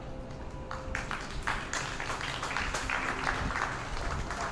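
A small crowd clapping and applauding, many quick irregular claps, as a piece of music ends about a second in.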